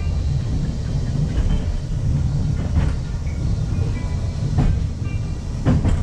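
Funicular railway car running on its track, heard from inside the cabin: a steady low rumble with a few sharp clacks in the second half.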